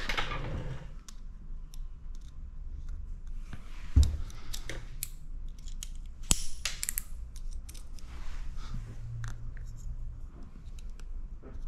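Paint protection film being trimmed and handled by hand with a small blade close to the microphone: a run of small snips, crinkles and clicks, with a dull thump about four seconds in and a sharp click a little after six seconds.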